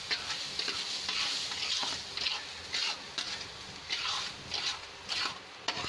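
Spatula scraping and stirring khoya and sugar around a kadhai in repeated irregular strokes, mixing the sugar into the hot khoya.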